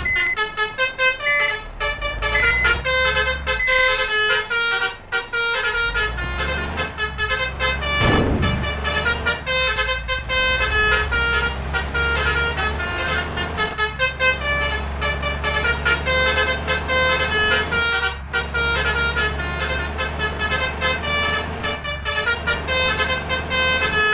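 Bus Basuri telolet horn playing a fast run of changing multi-tone notes, over the steady hum of the bus engine.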